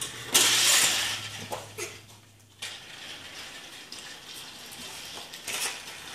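Battery-powered TrackMaster toy train running along plastic track, its small motor and gears clicking, with a loud plastic clatter about half a second in.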